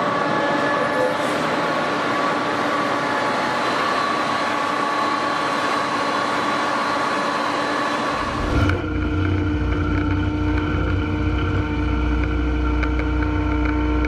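Massey Ferguson tractor engine running steadily as it hauls a USA Equipment 2500 CF push-off trailer unloading maize silage. About two-thirds of the way through, the sound cuts abruptly to a deeper, steady engine drone with a heavy low rumble.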